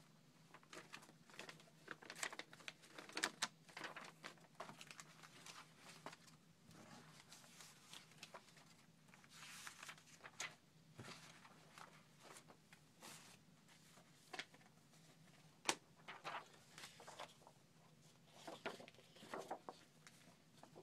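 Faint rustling and crinkling of old paper clippings and photographs being handled and shuffled, in many short, irregular bursts.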